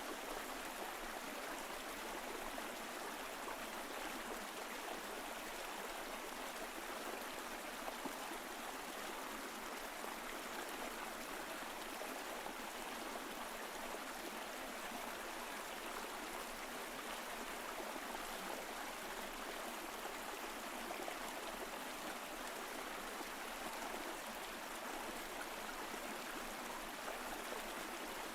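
Mountain stream flowing over rocks: a steady, even rush of water with a light trickle and gurgle.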